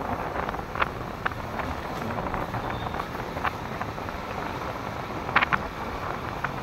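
Steady street and vehicle noise with wind rumbling on a Vivo V29e phone's microphone, broken by a few brief clicks.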